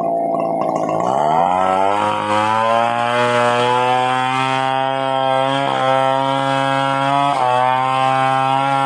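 Stihl 070 two-stroke chainsaw running. About a second in its pitch rises over a second to a steady high speed, which it holds with three brief dips.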